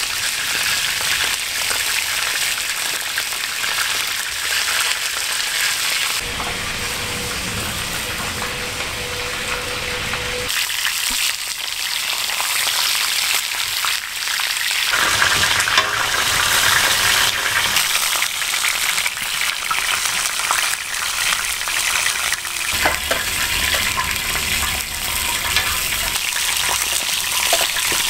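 Bone-in chunks of meat sizzling loudly as they sear in hot fat on a large round steel griddle disc. A steady frying hiss that shifts abruptly in character several times.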